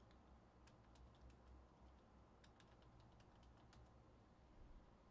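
Faint, irregular clicking of typing on a computer keyboard, in two short flurries, over a low steady hum.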